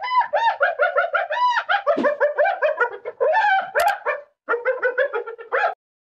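Spotted hyena giggling: a fast run of short, high-pitched, rising-and-falling yelping notes, several a second, with a brief pause about four seconds in and stopping just before the end.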